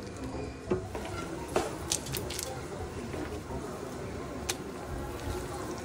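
Silicone spatula stirring a thin sauce in an enamelled cast-iron pot, with a few sharp light knocks against the pot, the loudest about a second and a half in.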